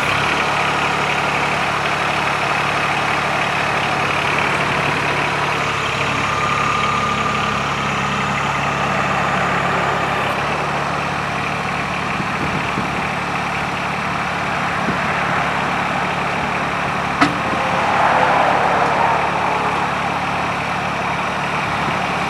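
Branson 2205h compact tractor's diesel engine running steadily while its hydraulics raise the backhoe's downriggers and loader, with the tone shifting slightly as the load changes. A single sharp click about seventeen seconds in.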